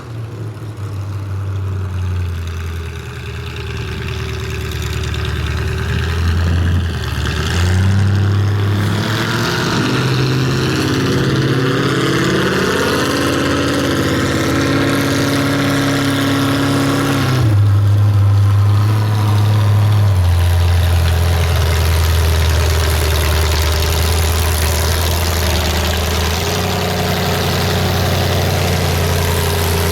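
A motor vehicle engine running, its speed shifting up and down in steps, climbing through the middle and dropping back about two-thirds of the way through, then settling.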